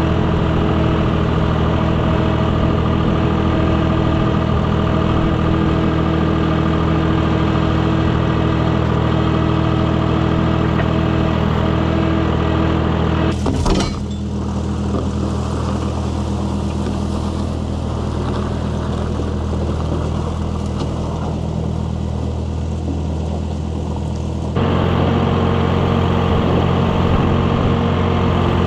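A compact equipment engine running steadily. About halfway through there is a click and the engine sound changes abruptly, and near the end it switches back.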